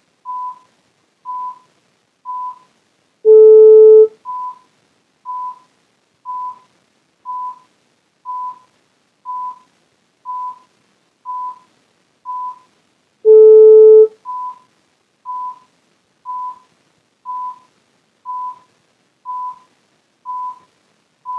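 Computer countdown beeps from the QuickPwn jailbreak tool: a short high beep once a second, with a longer, louder, lower tone twice, about three and a half and thirteen and a half seconds in. These are the cues to press the iPhone's Home and Power buttons and then to release Power while holding Home, to put it into DFU mode.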